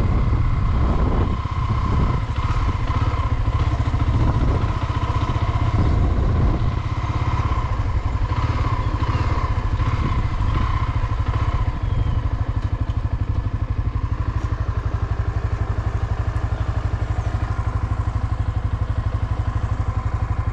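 Honda Twister 250 motorcycle's single-cylinder engine running, then settling into a steady, evenly pulsing idle about twelve seconds in.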